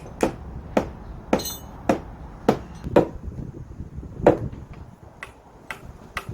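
Hammer blows on timber, struck steadily at about two a second with a short pause past the middle, as pieces of the house's wooden frame are knocked together.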